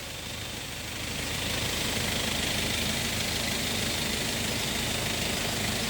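An engine idling steadily, its low rumble pulsing evenly, growing a little louder about a second in.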